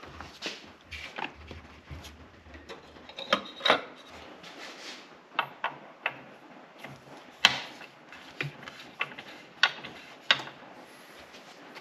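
Baxter Performance oil filter adapter being turned by hand into the engine's oil filter housing: scattered rubbing and scraping with light clicks and knocks, and one sharper click about seven and a half seconds in.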